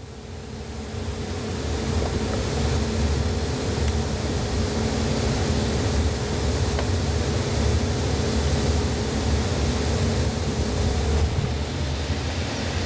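Shop machine running steadily: a broad rushing noise over a low rumble with a faint steady hum, building up over the first two seconds and then holding.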